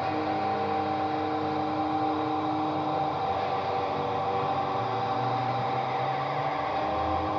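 Cassette playback of the band's album in a stretch with no drums or vocals: steady tape hiss and a constant hum-like tone, with a few held notes that fade out about three seconds in.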